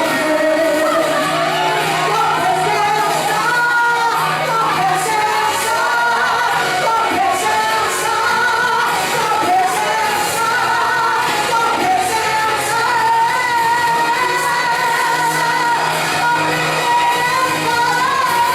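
Worship music with singing: voices carrying a melody over sustained low notes of the accompaniment.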